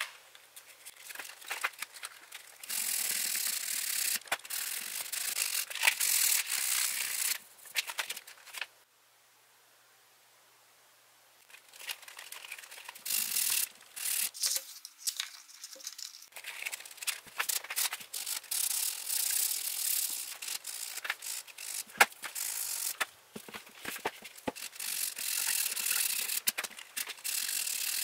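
Sandpaper wrapped on a profile sanding block being rubbed by hand along a primed hard-plastic steering wheel: repeated quick rasping strokes. The sound stops for about three seconds around nine seconds in, then the sanding resumes.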